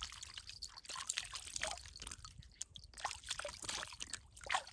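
Hands splashing and sloshing in shallow lake water, an irregular run of small splashes and trickles.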